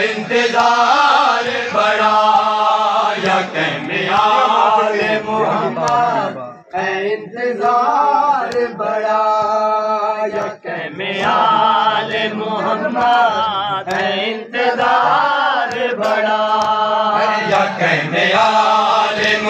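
Male voices chanting a noha, a Shia mourning lament, in repeated melodic phrases of about two seconds with short breaks, over a steady low hum.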